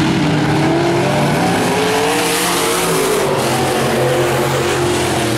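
Dirt-track race car engines running hard at speed, several pitches rising and falling as the cars go round the oval, with the hiss getting brighter for a moment about two seconds in as a car comes past.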